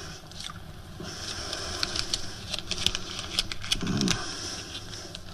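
Close mouth sounds of a man chewing and tasting something, with scattered lip-smacking clicks and a short low murmur about four seconds in.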